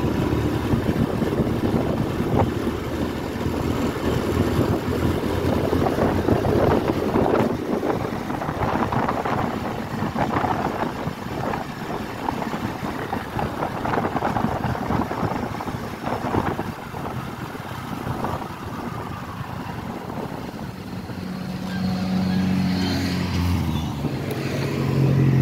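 Motorcycle engine running on the move, with wind buffeting the microphone in a continuous rushing rumble. Near the end a steady low engine hum comes through more clearly.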